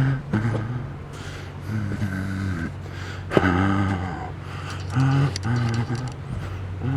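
A man's short wordless vocal sounds, hums or grunts, about a dozen of them, each under a second, over a steady low rumble.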